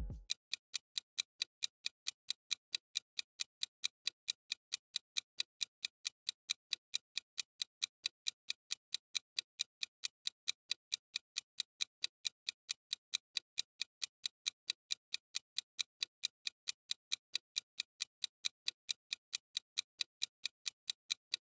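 Countdown-timer ticking sound effect: light, clock-like ticks at an even pace, a few each second, fairly faint.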